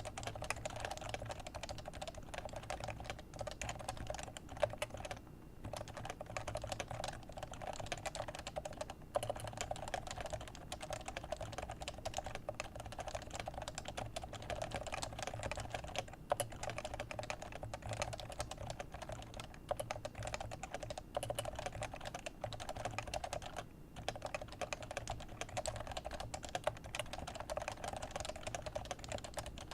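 Leopold FC660c keyboard with Topre 45g electrocapacitive switches being typed on steadily: fast, dense keystrokes, with brief pauses about five, nine and twenty-four seconds in.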